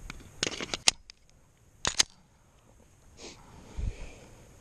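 Glock 19 pistol being handled: a quick run of light metallic clicks, then a sharp double click about two seconds in, and a dull thump near the end.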